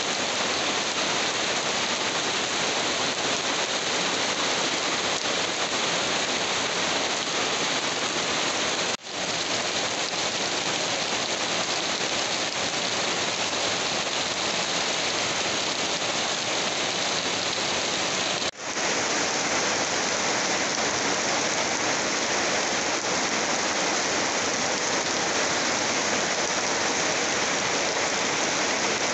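Heavy monsoon downpour: a dense, steady hiss of rain. It drops out for an instant twice, about nine and about eighteen seconds in, where clips are joined, and is a touch brighter after the second join.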